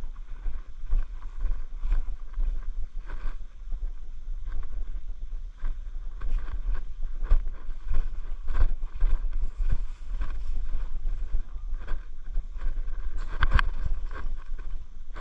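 Low rumble of wind or handling noise on the microphone, with irregular clicks and knocks throughout and a sharper crack about thirteen seconds in.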